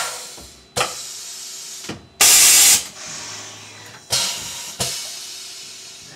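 Tormach CNC mill's pneumatic automatic tool changer and power drawbar cycling through a tool change: five sharp air hisses as the collet is released and clamped, the loudest a half-second blast about two seconds in. The air fitting behind an earlier leak has just been tightened, and the change runs normally.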